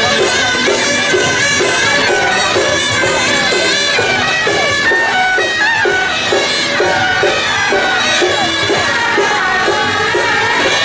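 Traditional Taiwanese temple-procession music: a shrill reed-horn melody over a steady, even beat of drums and gongs.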